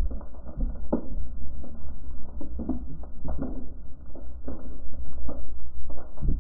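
Muffled underwater camera audio from a spearfishing dive: a steady low rumble of water with irregular clicks and knocks.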